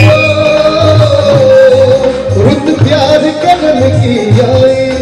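Live Punjabi song: a male singer holds one long, wavering note into a microphone over the band's accompaniment, with a steady low drum beat underneath.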